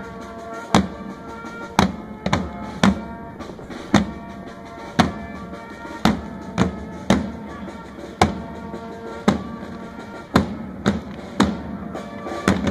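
Parade drums beating a slow march, about one stroke a second with some quicker strokes in between, over held instrument notes.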